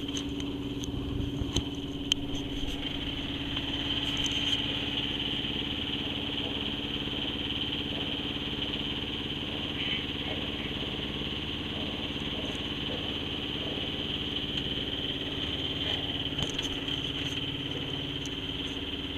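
A sailboat's engine running steadily as the boat motors out of harbour, an even, unchanging hum.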